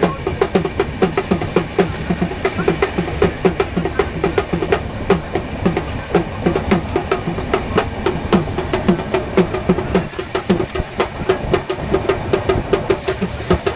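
A hand drum beaten in a quick, steady rhythm, over the running rumble of the train carriage.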